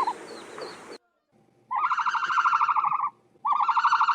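An animal's calls: two rapidly pulsing, warbling trills of about a second and a half each, one after the other, with the tail of a similar trill right at the start.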